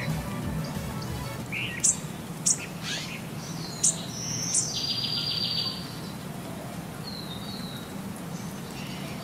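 A little owl giving several sharp, high-pitched chirps, then a short buzzy trill about five seconds in, and a couple of softer falling chirps near the end.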